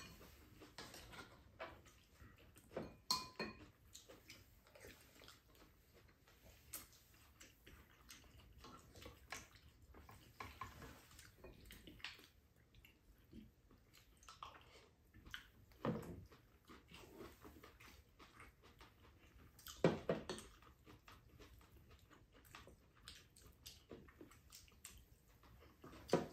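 Quiet eating sounds: chewing, with spoons and chopsticks clicking against ceramic bowls and the pan now and then, and a few louder knocks of tableware.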